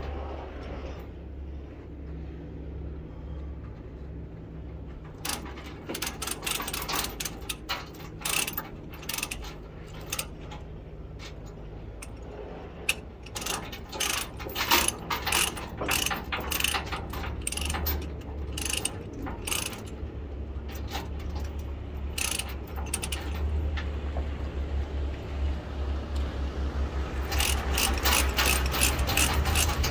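Ratchet load binder being cranked to tighten a tie-down chain on a heavy load: runs of quick ratchet clicks that come faster and denser near the end as the chain draws tight, over a low steady rumble.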